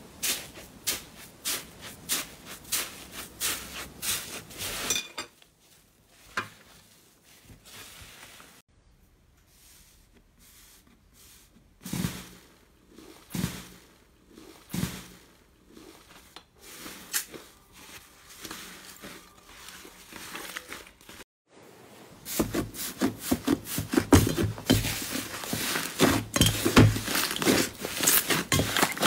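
Hands pressing and kneading thick slime in a bowl, making quick popping and crackling clicks. A fast run of clicks is followed by a quieter, sparser stretch of squelchy pops, then louder, denser crackling over the last several seconds.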